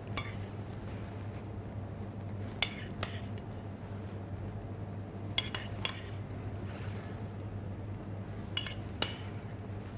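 Metal spoon clinking against a serving dish as kidney beans are scooped and spooned onto a salad: a light clink near the start, then three pairs of clinks about three seconds apart.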